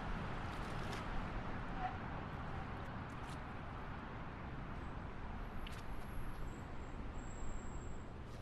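Busy city street traffic: a steady rumble of passing cars and other vehicles, with a few faint clicks and brief high-pitched squeaks near the end.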